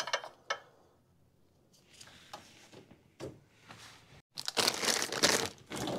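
A few small handling clicks, then after a quiet stretch a dense crinkling and tearing of packaging, loudest in the last second and a half, as a new part is unwrapped.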